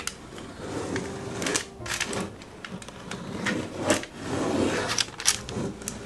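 Silicone spatula spreading thick brownie batter over baking paper in a metal pan: irregular soft scrapes and sticky squishes, with rustles of the paper.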